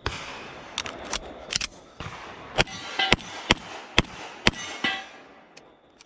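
1911 pistol firing a string of about a dozen shots in irregular pairs and singles. Steel targets ring after the hits in the second half.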